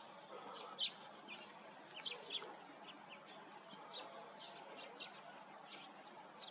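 Small birds chirping: many short, high chirps scattered through, with the loudest about a second in and a quick cluster around two seconds in.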